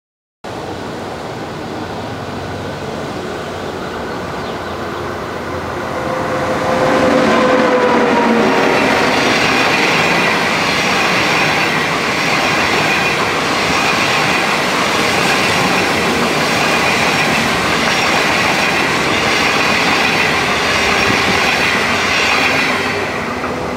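SS8 electric locomotive and its 25T passenger coaches passing at speed, with the rumble and clatter of wheels on rail. It swells about seven seconds in as the locomotive goes by, with a brief tone that drops slightly in pitch. Steady wheel noise from the coaches follows and eases near the end as the last coach passes.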